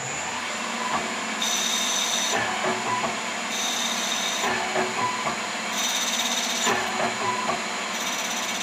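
Metal lathe with electronically driven ball-screw feeds running while it cuts a 1 mm pitch thread in four automatic passes. A high whine from the drive motors comes and goes four times, about every two seconds, over the steady running hum, with light clicks in between.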